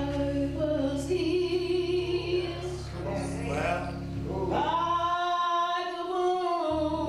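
A woman singing a gospel song, drawing out long held notes, with music behind her voice.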